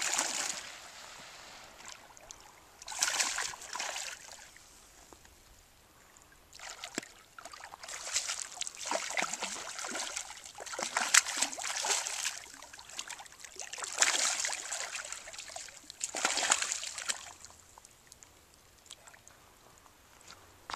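A hooked smallmouth bass thrashing and splashing at the water's surface in about five bursts, the longest in the middle, as it is fought in to the shore.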